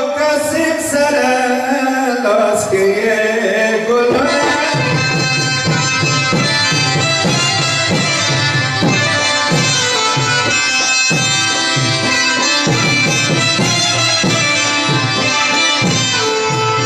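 Music: a melodic line that bends up and down for the first few seconds, then a steady hand-drum beat comes in about four seconds in under a dense, sustained melody.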